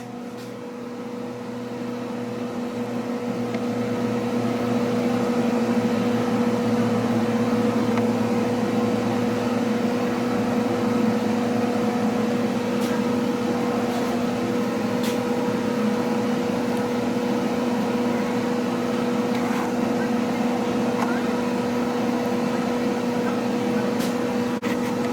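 Electric motor running with a steady hum, growing louder over the first few seconds and then holding steady.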